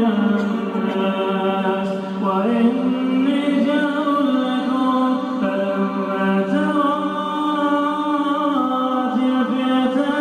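A male reciter chanting the Quran in melodic tajweed, holding long drawn-out notes that glide slowly in pitch. There is a brief break about two seconds in before a new phrase rises.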